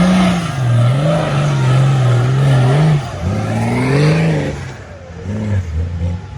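Nissan Patrol 4x4 engine revving up and down several times, its pitch swinging repeatedly. About five seconds in it eases back to a quieter, lower-pitched run.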